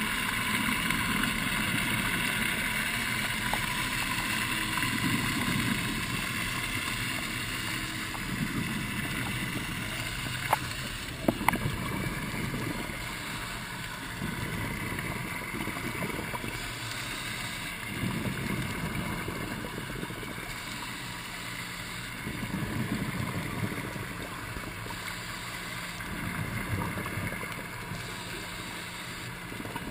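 Scuba diver breathing on a regulator, heard underwater: rushes of exhaled bubbles every few seconds over a steady hiss. A couple of sharp clicks come about ten and eleven seconds in.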